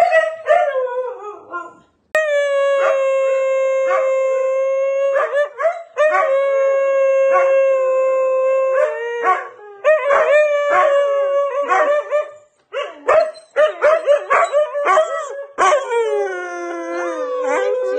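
Siberian huskies howling. A couple of seconds of choppy yips and woo-woo calls come first, then long howls held steady on one pitch, then broken, wavering woo-woo calls. Near the end comes another long howl that slides down in pitch and then holds.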